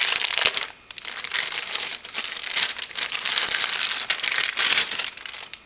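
Crinkling of a small plastic toy wrapper being opened by hand, with a short break about a second in.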